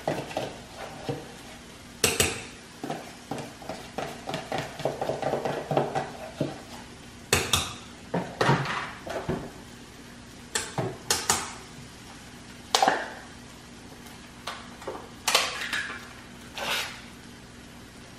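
Metal utensil mashing and stirring boiled potatoes in a stainless steel saucepan, clinking and scraping against the pot. The knocks come in irregular bunches with short pauses between them.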